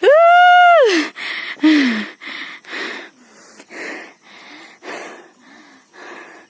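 A person's short, high voiced cry, then hard, rhythmic panting, about two breaths a second, growing fainter: a hiker out of breath on a steep climb.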